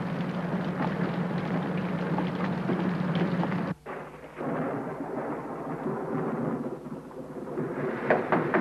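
Heavy rain with a steady low rumble under it; the rumble cuts off abruptly a little under four seconds in while the rain goes on, and a few sharp knocks come near the end.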